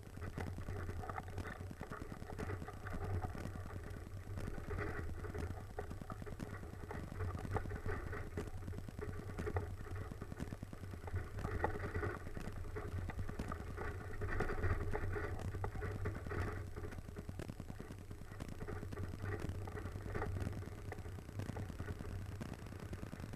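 Off-road vehicle's engine running at low revs, a steady low hum.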